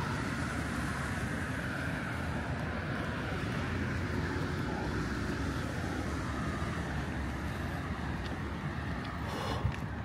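Steady city street traffic noise, with a single sharp tap near the end.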